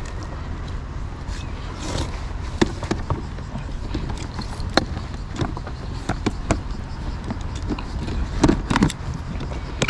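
Scattered knocks and plastic clatter from a small cooler box as a large fish is forced inside and the lid is pushed down on it, with a louder run of knocks near the end. A steady low rumble lies underneath.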